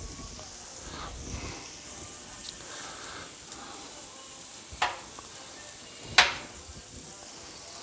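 Rice and vegetables sizzling on a hot Blackstone flat-top griddle, with two sharp clacks about a second and a half apart near the end, the second the loudest.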